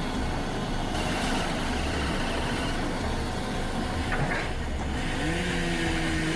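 Firewood processor's engine and machinery running steadily with a dense low rumble. About five seconds in, a hum rises in pitch and then holds steady, as the engine or hydraulics come under load.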